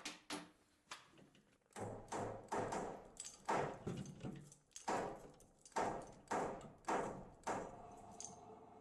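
A series of about a dozen sharp knocks, roughly two a second and each with a short ringing tail, starting about two seconds in: tools striking engine parts while the engine is being taken apart.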